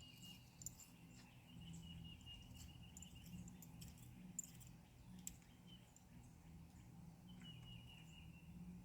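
Near silence: a faint steady low hum with a thin high tone that comes and goes, and a few soft ticks.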